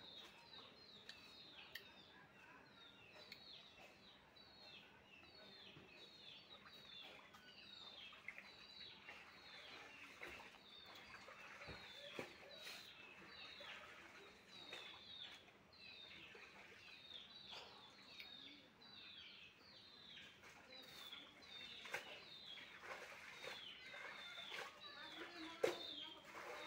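Ducklings peeping: a continuous run of short, high peeps, each falling in pitch, about two a second.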